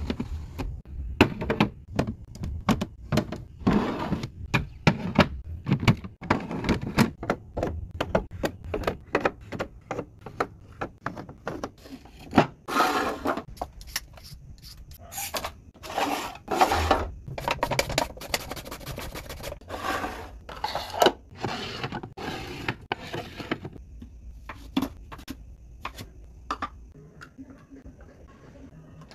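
Restocking and cleaning noises: quick clicks, clacks and knocks of containers being handled and set down, mixed with longer stretches of rustling or crinkling that come thickest in the middle, before things grow quieter near the end.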